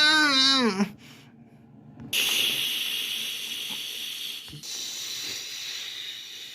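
A short voice-like cry that falls in pitch and stops about a second in, then, after a brief hush, long stretches of steady hissing that start about two seconds in and again about four and a half seconds in.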